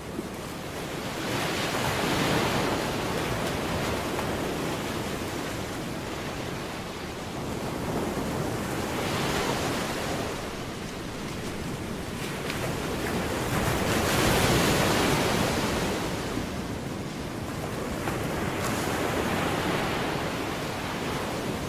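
Ocean surf: waves washing in and falling back, swelling in surges every five to seven seconds.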